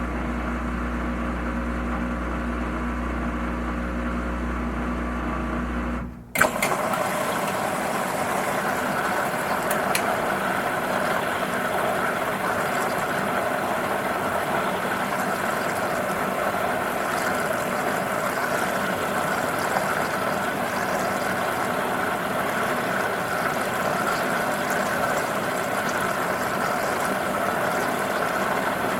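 Washing machine running. For the first few seconds its motor gives a steady low hum. About six seconds in a sharp click marks a change to a louder, even rushing and churning sound.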